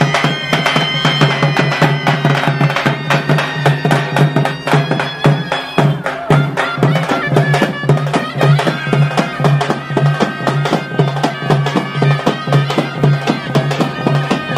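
Live folk procession music: a reedy pipe (shawm) playing a melody over frame drums beaten with sticks in a steady beat.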